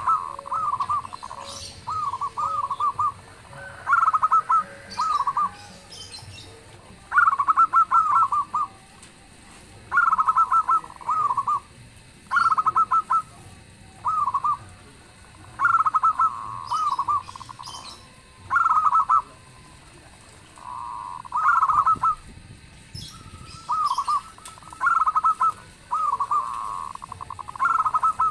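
Zebra doves (perkutut) cooing: short phrases of rapid, clipped coo notes, repeated every two seconds or so.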